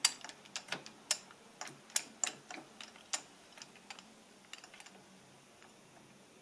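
Irregular sharp metallic clicks from a small Chinese benchtop lathe's carriage apron as its levers and handwheel are worked by hand. The clicks come thick and loud for about three seconds, then thin out to a few faint ones.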